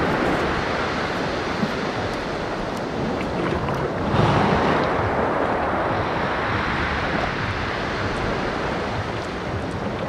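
Small sea waves washing over a flat rocky shore, with wind buffeting the microphone. The wash swells up about four seconds in.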